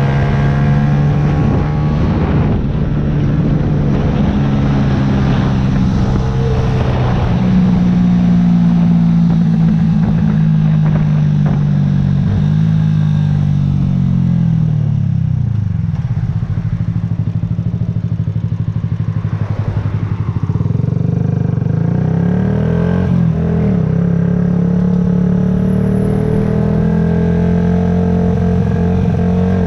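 Yamaha YZF-R125 single-cylinder four-stroke engine running under way, its note rising and falling with the throttle. The revs sweep down about halfway through as the bike slows, then pick up again in short climbs near the end.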